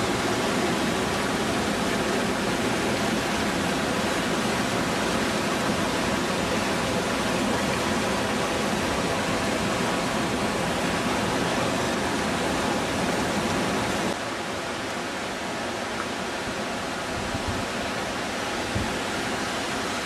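Whitewater river rapids rushing over boulders: a steady, noisy rush of water. About fourteen seconds in it drops a little in level and loses some of its low end.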